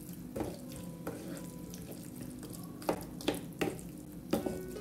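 Wooden spoon stirring tomatoes, peppers and onions frying in a nonstick pan, with a soft sizzle under it and several sharp knocks of the spoon against the pan.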